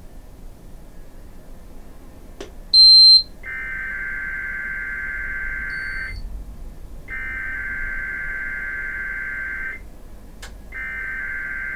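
A loud, short, high electronic beep, then three NOAA Weather Radio SAME header bursts. Each burst is a harsh digital screech about two and a half seconds long, with about a second of gap between them. The headers open the station's required weekly test.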